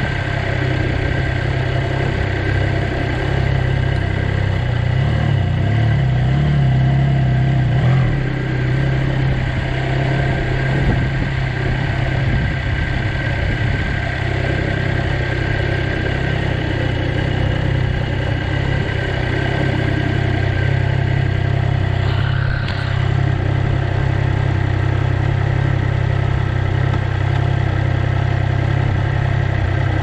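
Triumph Trident motorcycle's three-cylinder engine running steadily at low revs, close to idle, as the bike rolls slowly and then sits in neutral.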